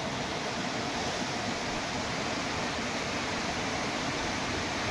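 Shallow mountain river rushing over rocks and stones: a steady, even rush of water.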